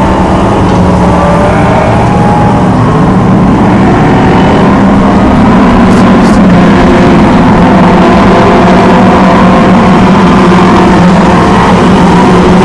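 A field of short-track stock cars racing around an oval, many engines running loud together. Their notes shift as the cars pass through the turn.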